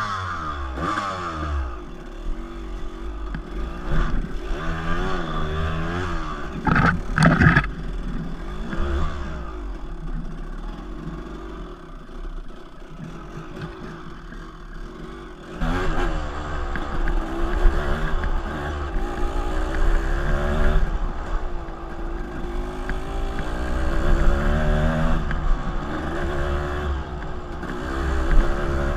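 Dirt bike engine revving up and down under load, with a couple of sharp knocks about seven seconds in. The engine runs louder from about halfway.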